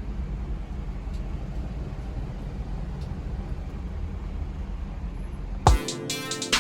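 Steady low rumble of city street traffic. Near the end it cuts off and music starts suddenly.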